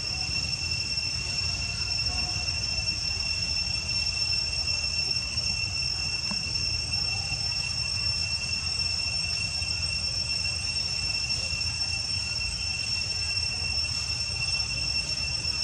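Steady, unbroken high-pitched insect drone from the surrounding vegetation, with a low rumble underneath.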